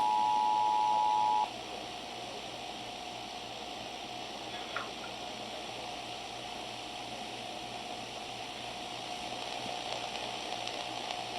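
Emergency Alert System two-tone attention signal, two steady tones sounded together, cutting off suddenly about a second and a half in. Then dead air from the broadcast: steady hiss with a faint hum and a couple of faint clicks.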